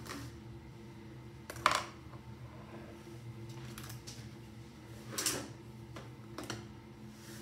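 A paddle hairbrush stroked through long hair, with brief rushing strokes about five and six and a half seconds in and a sharp knock a little under two seconds in, over a steady low hum.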